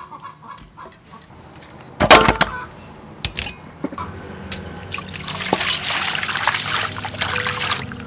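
Raw chicken pieces handled in a metal bowl, with a loud clatter about two seconds in. From about five seconds, tap water pours and splashes into the bowl over the chicken to wash it, stopping just before the end.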